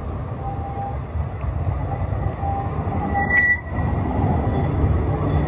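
Articulated low-floor electric tram passing close by on street track, its wheels on the rails making a steady low rumble. A brief high tone sounds about three seconds in as it goes past.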